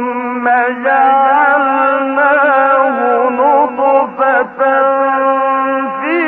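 A male Quran reciter chanting in the melodic mujawwad style, holding long ornamented notes in a high voice, with a short break about four seconds in. The recording is old and narrow-sounding, with no treble.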